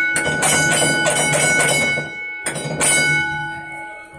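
Metal chain under a tram clanking and rattling: a quick run of sharp clanks about four a second, a short pause about two seconds in, a few more clanks, then dying away near the end.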